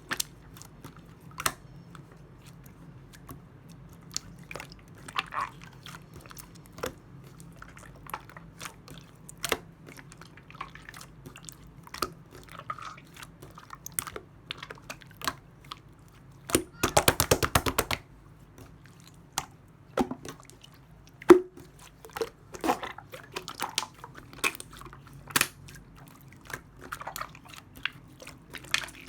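Clear slime being handled, giving sticky clicks and pops at irregular intervals, with a quick run of rapid popping about 17 seconds in.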